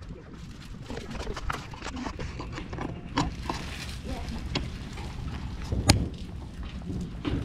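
Scattered knocks and rustles of a plastic-wrapped mattress being shoved into the cargo box of a moving truck, with one loud thump about six seconds in.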